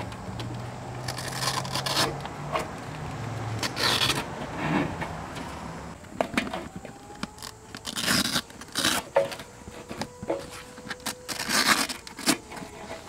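Saddlebag straps being unfastened and pulled free from a motorcycle's rear fender: irregular scraping and rasping of fabric straps and buckles being handled, in short bursts.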